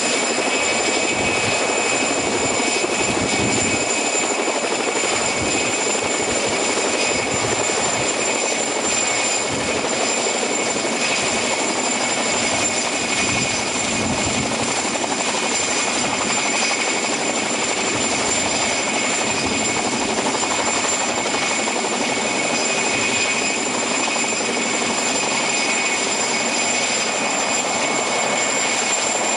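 PZL Mil Mi-2 helicopter hovering close to the ground, its twin turboshaft engines and rotor running steadily, with a steady high turbine whine over the rotor noise.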